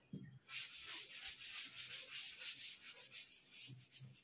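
Blackboard duster rubbing chalk off a chalkboard: faint, rapid back-and-forth wiping strokes.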